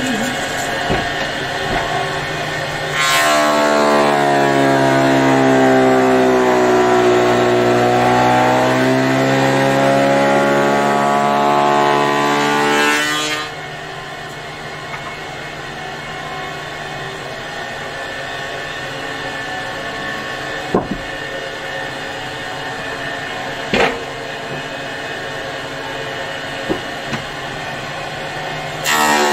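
Belt-driven woodturning machine running while it cuts a round slice of log. For several seconds the cutting is loud and the machine's pitch sinks and then climbs again. After that it runs more quietly and steadily, with a few sharp knocks, and grows loud again near the end.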